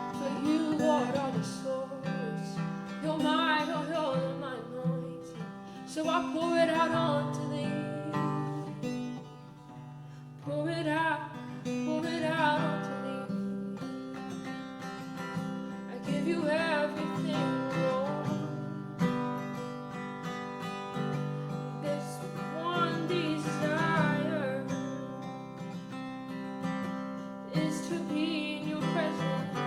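Acoustic guitar strumming steady chords, with a voice singing wordless, wavering phrases over it every few seconds.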